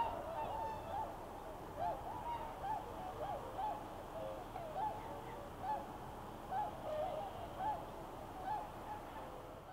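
A flock of swans calling on the water: many short, overlapping calls, each rising and falling in pitch, with the loudest right at the start.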